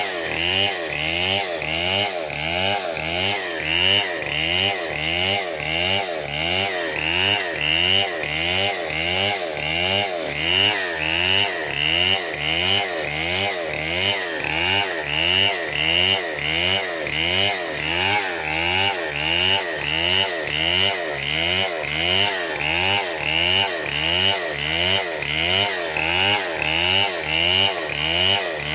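Chainsaw-powered wood-cutting machine running continuously, its engine pitch rising and falling in a steady, even rhythm about three times every two seconds as it works through the wood.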